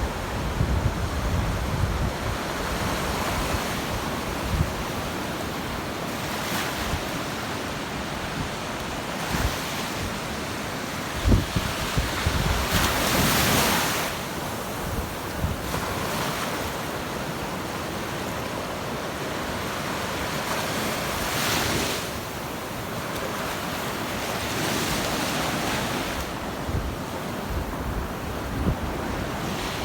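Ocean surf breaking and washing up the beach in repeated swells, one louder wash about midway, with wind buffeting the microphone.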